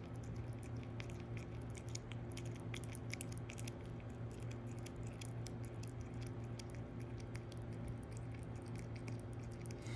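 Prairie dog chewing a dry snack held in its front paws: a constant run of small crisp crunches and clicks. A steady low hum lies underneath.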